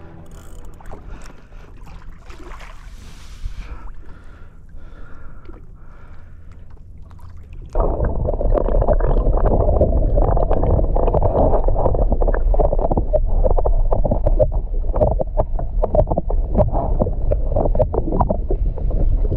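Seawater sloshing and gurgling around a camera held at the surface beside a kayak. About eight seconds in it changes suddenly to a loud, muffled, steady rush of water as the camera goes under.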